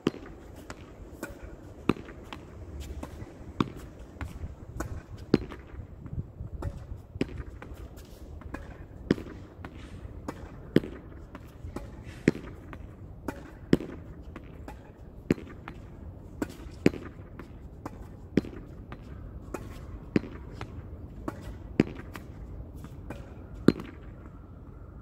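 A ball repeatedly hit against a wall in a solo rally. There is a sharp, loud knock about every one and a half to two seconds, with fainter knocks between.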